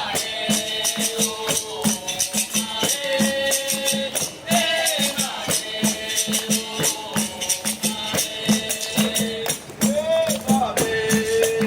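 Capoeira roda music: voices singing long held notes over a steady, evenly repeating hand-percussion beat with jingling.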